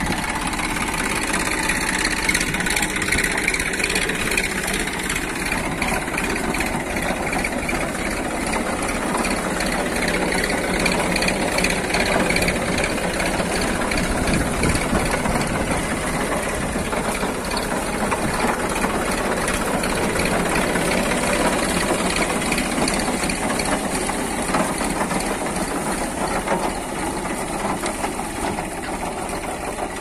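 Tractor engine running steadily, a continuous mechanical sound with no breaks.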